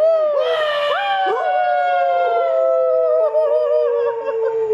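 Dalmatian howling: long, slowly falling notes with a wavering edge, with a second howling voice overlapping at times.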